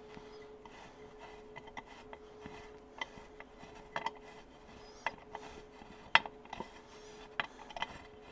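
Light, irregular metallic clicks and taps as a quarter-inch Allen wrench turns in a Harley Sportster's primary chain tensioner, spinning the tensioner stud out of the threaded outer primary cover. The sharpest click comes about six seconds in, over a faint steady hum.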